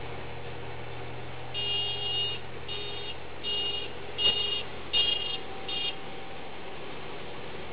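A vehicle horn beeps six times in short uneven honks over a steady low engine drone, with a sharp click about four seconds in.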